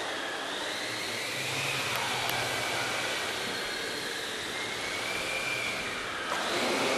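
Small electric RC foam plane's motor and propeller whining as it flies, the pitch slowly rising and falling with the throttle.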